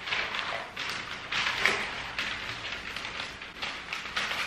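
Wrapping paper rustling and crinkling as a sheet is unrolled and handled, in a string of short crackly bursts.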